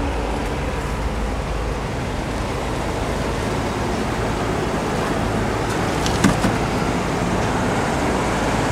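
Steady road-traffic noise from vehicles passing nearby, with a couple of short clicks about six seconds in.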